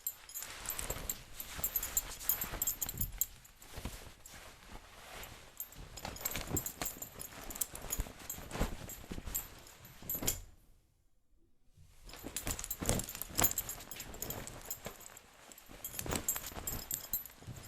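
Trousers with a belt being pulled on and off: cloth rustling and the metal belt buckle clinking and jingling, in two bouts with a short pause about ten and a half seconds in.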